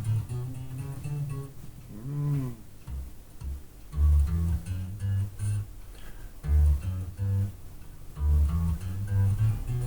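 Electric bass guitar, freshly restrung, played through a bass amp cabinet: a run of separate low plucked notes from a finger warm-up exercise.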